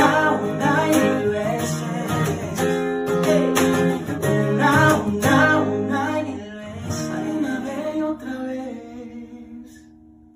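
Acoustic guitar strummed under two male voices singing a Spanish pop ballad. About two-thirds of the way through the singing ends and the last guitar chord rings on and fades away.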